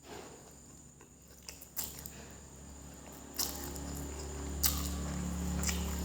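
Close-miked chewing of mie goreng fried noodles, with scattered sharp clicks and a low steady hum that grows louder from about halfway in.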